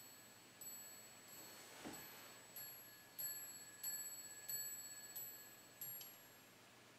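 Angel chimes, a candle-driven carousel whose swinging strikers tap small metal bells in turn: faint high tinkling, one ting about every two thirds of a second, each note ringing on.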